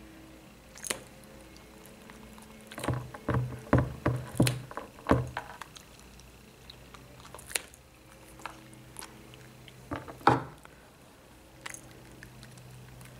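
Pet nail clipper snipping a cat's claws: a scattered series of sharp clicks, a quick cluster of them a few seconds in and the loudest one about ten seconds in.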